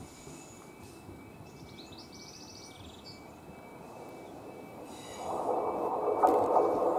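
Class 153 single-car diesel multiple unit approaching, a few bird chirps at first, then about five seconds in the rumble of its engine and wheels on the rails rises quickly, with a couple of sharp clicks from the track.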